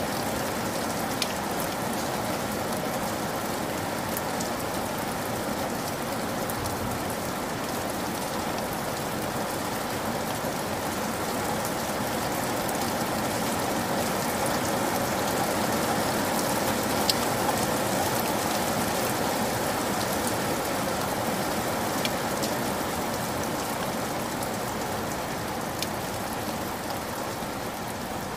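Heavy rain falling steadily and splashing on the ground, a dense even hiss with a few sharp ticks of single drops scattered through it.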